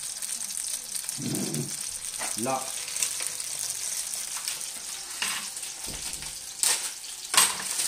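Tomato halves topped with garlic sizzling steadily in oil in a frying pan. A few sharp clicks come near the end, the last one the loudest.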